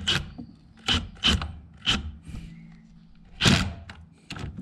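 Hand ratchet clicking in short rasping bursts, about five back-swings spread unevenly over a few seconds, as cylinder-head bracket bolts are gently snugged down.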